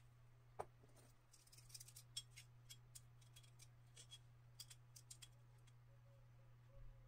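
Faint, scattered light clicks and ticks over a steady low hum, with one sharper click just after the start and a cluster of quicker clicks in the middle.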